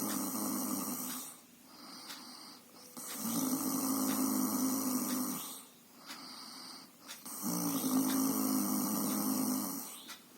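Snoring in a steady rhythm: three long snores, each about two seconds, roughly every four seconds, with softer breaths in between.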